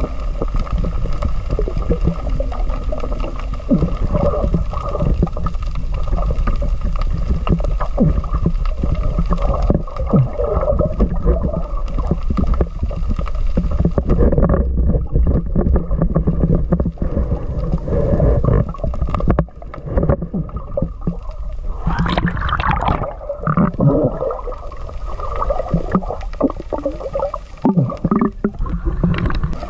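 Muffled underwater sound picked up by a submerged camera: a steady low rumble of moving water with irregular knocks and gurgles. A sharper, brighter burst comes about two-thirds of the way through.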